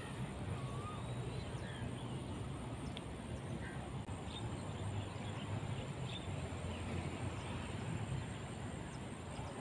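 Outdoor riverside ambience: a steady low hum with a high thin whine above it, and a few faint, short bird chirps.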